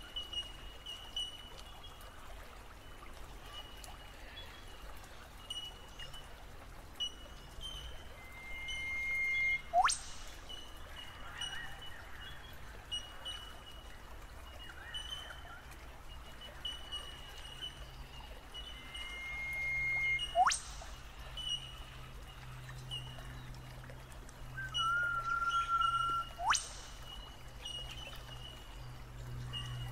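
Creek water running over rocks, with birds calling over it. A repeated short high chirp goes on throughout, and three times a held whistled note ends in a sharp, very fast sweeping note.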